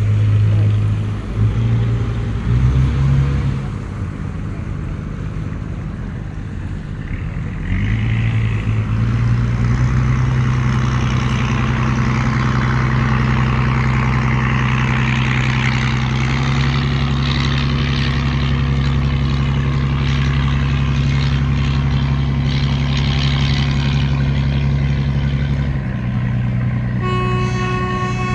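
A river boat's engine drones steadily, settling into a stronger, even hum about eight seconds in. Near the end a boat horn starts blowing one steady note.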